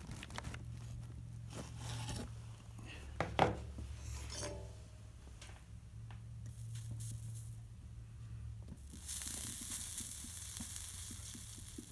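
Soldering iron on a stained glass lampshade seam: flux and molten solder sizzling under the hot tip, with small clicks and taps early on and a steady hiss near the end. A low steady hum runs underneath.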